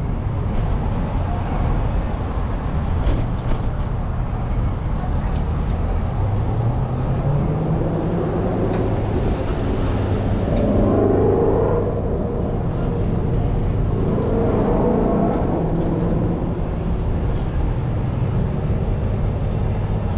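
Street traffic with a steady low rumble. About six seconds in, a vehicle engine rises in pitch as it speeds up, followed by a couple of brief stretches of higher pitched sound, like voices or music from the street.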